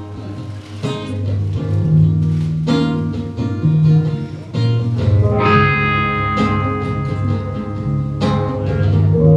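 Live band playing the instrumental opening of an original song: electric guitars picking notes over a low bass line, without drums. About five and a half seconds in, a guitar holds a long ringing note.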